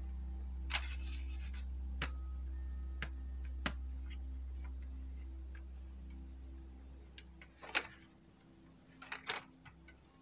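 Scattered clicks and light taps of small plastic parts and tools being handled on a worktable, with a few louder ones near the end, over a low hum that fades out about three quarters of the way through.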